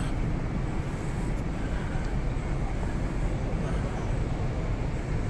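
Steady outdoor city background noise: a constant low rumble with a hiss above it and no distinct events.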